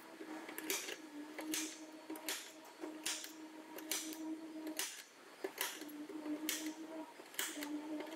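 Slide-hammer dent puller knocking against its end stop again and again as it pulls a dent out of a steel rocker panel: sharp metallic knocks about once a second.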